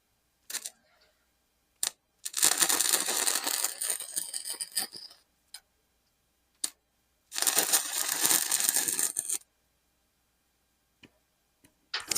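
Wire-feed (MIG) welder arc crackling in two runs, the first about three seconds long and the second about two, with a few short sharp crackles of brief arc strikes before and between them.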